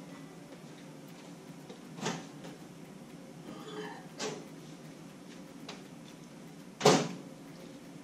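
A few scattered knocks against quiet room tone as someone moves about a kitchen, the loudest a sharp knock with a brief ring about seven seconds in, a cupboard- or door-like bang. A faint voice is heard briefly near the middle.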